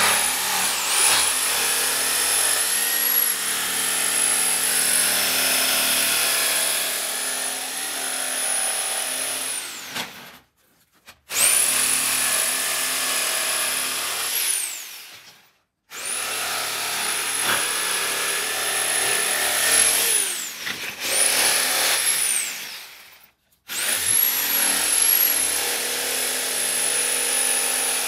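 Electric jigsaw cutting a curved line through 19 mm plywood, its motor giving a steady high whine. It stops and starts again four times, the whine winding down at each stop and rising as it spins up again.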